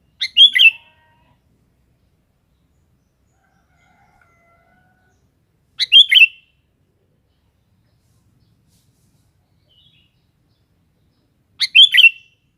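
Sooty-headed bulbul (kutilang) giving a short, bubbly chirping call three times, about six seconds apart.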